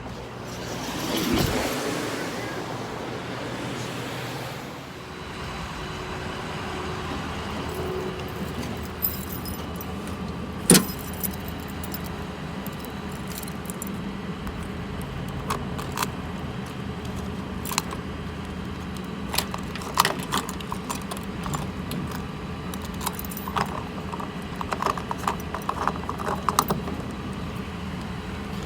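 Chevrolet S10 Blazer heard from inside the cabin while driving: a steady engine and road hum with scattered light metallic clicks and jangles, and one sharp click about eleven seconds in.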